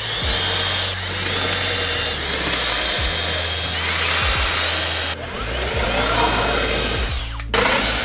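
Compact cordless drill boring holes into a wooden panel, the motor whirring continuously under load, with a brief break near the end as it moves to the next hole.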